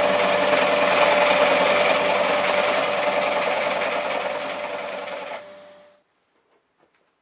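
Scheppach SD1600V scroll saw running, its blade reciprocating rapidly as it cuts a workpiece, with a steady hum and a higher whine over the cutting noise. The sound dies away about six seconds in.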